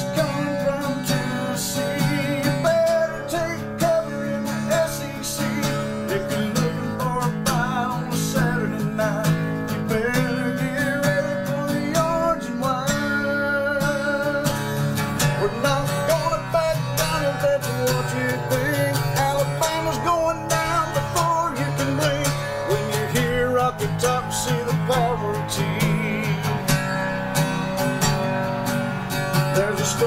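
Acoustic-electric guitar strummed steadily in a country song, with a man singing along.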